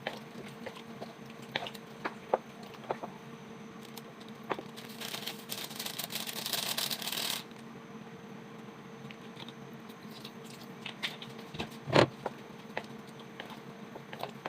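Kitchen handling sounds while cooking: scattered clicks and knocks of utensils and pans, a rush of noise lasting about two and a half seconds midway, and a sharper knock near the end, over a steady hum.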